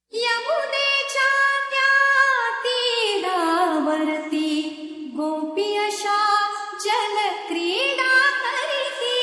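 A woman singing an unaccompanied melodic line in an Indian style, holding long notes and sliding between them with ornamented turns.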